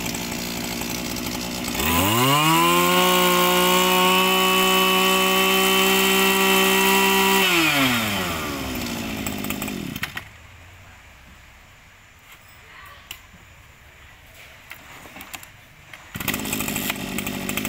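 Echo 260 backpack brushcutter's two-stroke engine idling, then revved up sharply to a steady high speed for about five seconds and let back down to idle. About ten seconds in it goes quiet, and near the end it is heard idling again.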